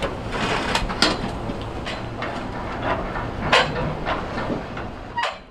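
Heavy machinery running with a steady low drone, with irregular metal clanks and knocks as steel boat stands are set under the hull.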